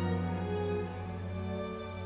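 Slow, soft background music of held bowed-string notes over a sustained low bass tone.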